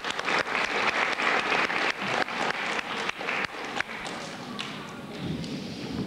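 Audience of children applauding: many hands clapping irregularly, thinning out after about four seconds.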